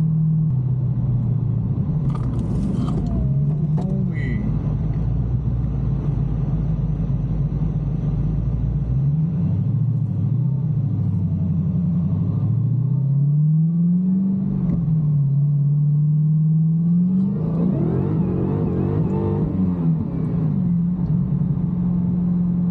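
Supercharged 426 Hemi V8 in a Dodge Challenger running under way, its revs rising and falling several times, with a louder burst of acceleration about three quarters of the way through.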